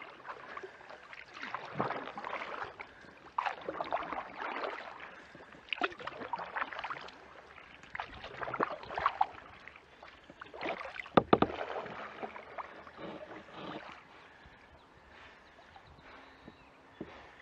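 Kayak paddle strokes: the blade dips and pulls through calm creek water with a splashing swish about every two seconds, and a sharp knock past the middle. The strokes stop for the last few seconds as the kayak glides.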